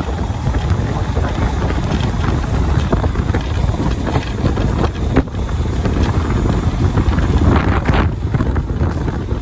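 Wind buffeting the microphone of a camera on a moving trail motorcycle, a heavy gusting rumble, with a couple of sharp knocks about five and eight seconds in.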